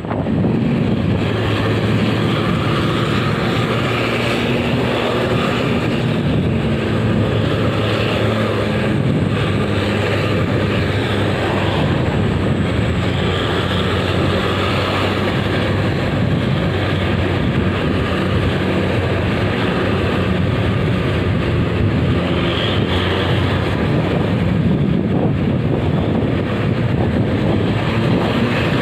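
Steady engine hum and tyre-on-road noise from vehicles driving on a road behind a coach bus, holding an even pitch without sharp events.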